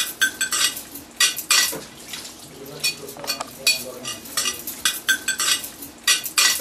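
Ceramic dishes clinking and clattering against each other in a kitchen sink, a rapid run of sharp clinks, each ringing briefly.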